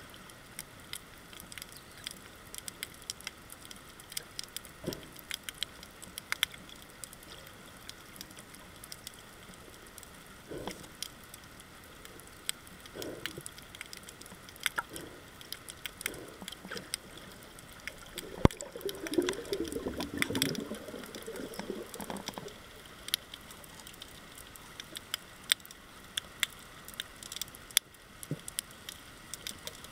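Underwater reef crackle: a steady scatter of sharp clicks and pops, typical of snapping shrimp. Around the middle, a louder muffled rustling burble lasts about four seconds.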